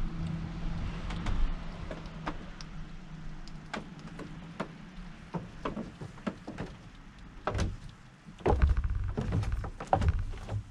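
Hedgehogs crunching sunflower seeds: irregular sharp clicks and cracks, with a run of louder knocks and thumps from about seven and a half seconds in.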